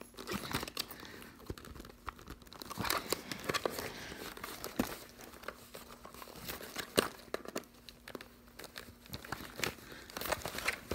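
Irregular plastic clicks, scrapes and rubbing as the earmuff mount of an Eartec Comstar headset is pushed and wiggled into the tight-fitting side slot of a Petzl helmet.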